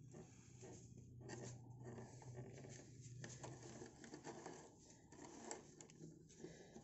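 Faint scratching and scraping of metal threads as a bicycle pedal axle is turned by hand into a threaded repair insert in the crank arm's pedal eye. The thread goes in without binding.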